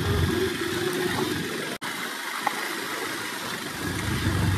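Motorcycle engine running during a ride, with road and wind noise. The sound drops out sharply for an instant about two seconds in, then comes back, with a deeper engine rumble building near the end.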